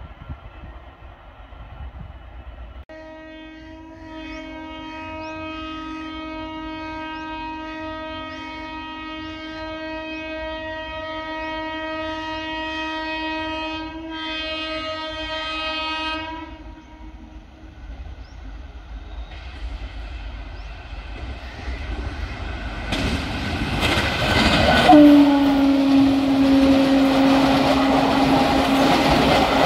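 An Indian Railways locomotive horn sounds one long blast of about thirteen seconds as a train approaches. The train then passes at speed; the horn sounds again and drops in pitch as the locomotive goes by, followed by the clatter of the coaches over the rail joints.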